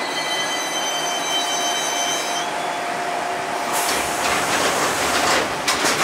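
Enshu Railway 1000 series electric train running, heard from inside the car at the gangway between cars: a steady rumble with a thin whine, then a run of clacks and rattles over the last two seconds.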